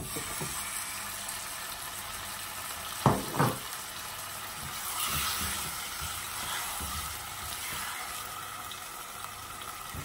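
Raw chicken pieces sizzling in hot oil in a saucepan, the sizzle starting suddenly as the chicken goes in and staying steady while it is stirred with a silicone spatula. Two louder knocks come about three seconds in.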